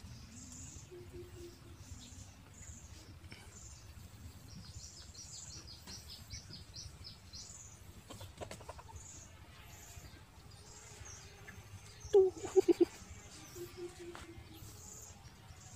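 Newborn puppies whimpering faintly, with a short burst of louder squeals about twelve seconds in. Small birds chirp in the background, with a quick run of chirps a few seconds in.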